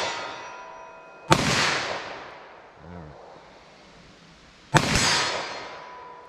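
Two .357 SIG pistol shots from a Smith & Wesson M&P 40 with a conversion barrel, fired slowly about three and a half seconds apart. Each has a long fading echo, and after each comes a thin ringing ping from the steel silhouette target being hit.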